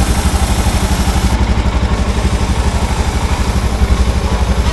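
Royal Enfield Scram 411's 411 cc single-cylinder engine running steadily with an even low pulse, in gear on its stand so the rear wheel and chain are turning.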